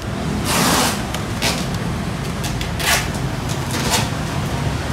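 Steady low rumble of street traffic with several short, sharp scraping noises over it, the longest about half a second in.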